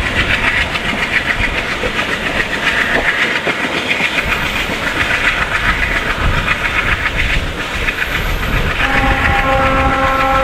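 Train wheels clattering over rail joints, with diesel rumble, heard from a coach hauled by a WDG-3A diesel locomotive. About nine seconds in, the locomotive's multi-tone horn starts a long steady blast.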